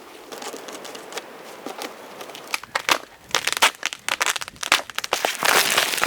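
Packaging being unwrapped and crumpled: a run of sharp crinkling crackles that grows denser and louder in the second half.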